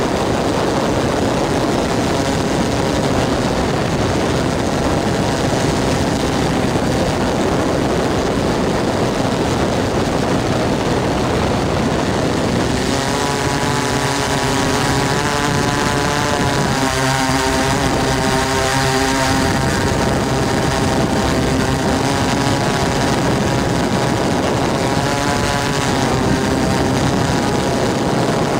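DJI S800 hexacopter's six brushless motors (Tiger MN4014-11 320KV) with 15-inch propellers, heard from the camera riding on the craft, a steady whir mixed with rushing gusty wind noise. From about halfway a pitched motor whine wavers up and down as the motors speed up and slow to hold the craft steady in the gusts.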